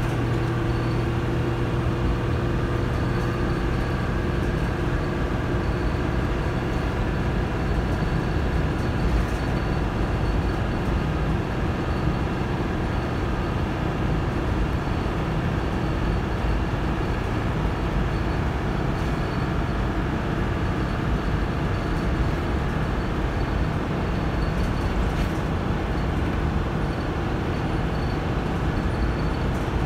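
Cabin noise of a Dennis Dart SLF single-deck bus on the move, heard inside the saloon: a steady rumble of engine, transmission and road noise. The engine's drone fades away within the first couple of seconds.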